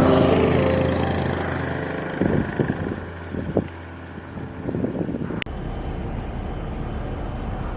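A motor engine running with a steady low hum that fades away over the first two seconds, followed by a few scattered knocks. About five seconds in, the sound cuts abruptly to a steady noise.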